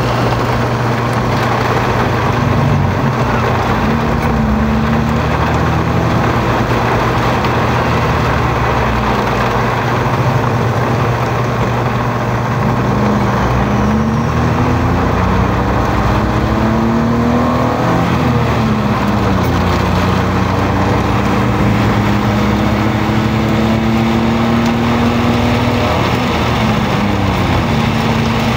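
Heavy rain hitting a car's roof and windshield, heard inside the moving car, over the car's engine hum, whose pitch rises and falls as the car speeds up and slows.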